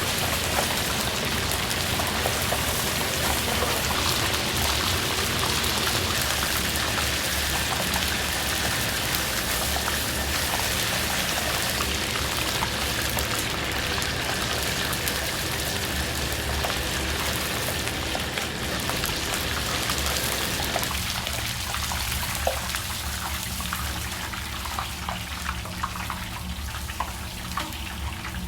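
Steady sizzling and crackling of battered pork deep-frying in hot oil for tangsuyuk, easing off about two-thirds of the way through.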